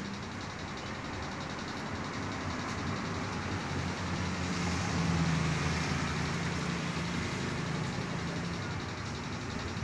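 Steady background traffic noise, with a low engine hum that swells about halfway through and then fades, as of a vehicle passing.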